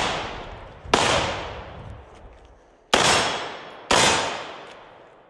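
Three gunshots, about two seconds and then about one second apart, each ringing out with a long echo through the trees.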